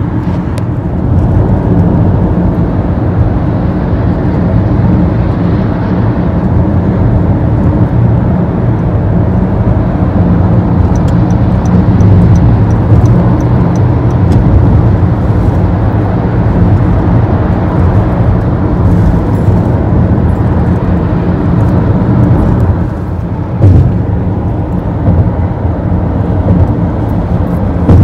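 Steady road and engine drone heard inside a car cruising at highway speed, with a short bump about three quarters of the way through.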